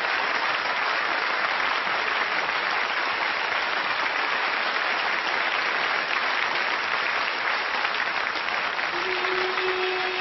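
Studio audience applauding steadily. A single held musical note comes in near the end.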